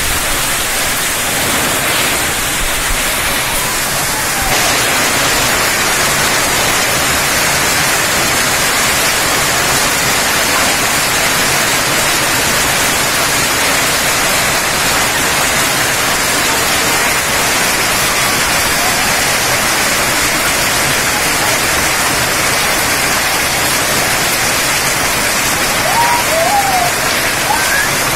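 Torrential rain mixed with hail pouring onto a paved courtyard, a loud, dense, unbroken hiss of downpour that grows a little louder about four seconds in.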